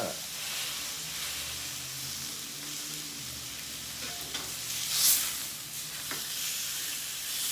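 Shell steaks sizzling as they sear in a hot skillet, a steady hiss with a louder surge of sizzle about five seconds in.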